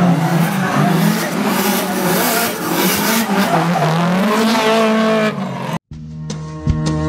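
Drift car's engine revving, its pitch rising and falling, over loud tyre squeal as the car slides sideways. About six seconds in, the sound cuts off abruptly and music begins.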